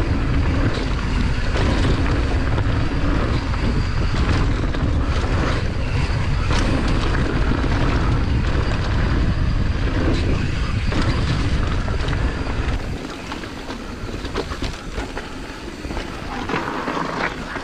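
Wind buffeting a helmet-mounted GoPro Hero 9's microphone on a downhill mountain bike riding a dirt singletrack, with tyre noise and short rattles and clicks from the bike over bumps. The deep wind rumble drops away suddenly about two-thirds of the way through.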